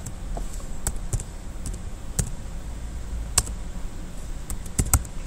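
Scattered single keystrokes on a computer keyboard, about eight separate clicks, with three in quick succession near the end, over a low steady hum.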